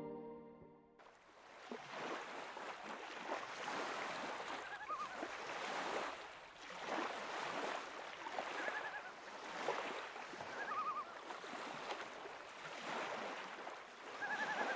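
Lake water washing in small waves, a steady hiss that swells and falls every second or two, beginning about a second in as music fades out. A bird gives a short warbling call four times.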